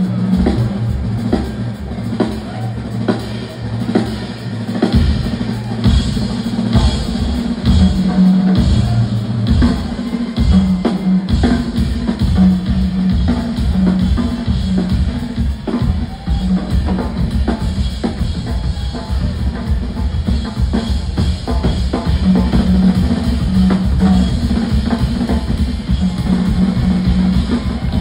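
Two drummers on full drum kits playing a live drum feature: busy kick, snare and tom strokes. The low end grows fuller about five seconds in.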